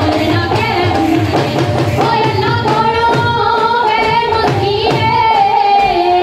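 Punjabi folk music for a luddi dance: a sung melody over a steady, driving dhol beat.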